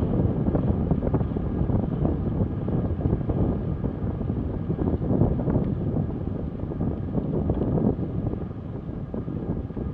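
Wind buffeting the action camera's microphone as a recumbent cycle rolls along a wet road at about 12 to 16 mph, with a steady gusting rumble.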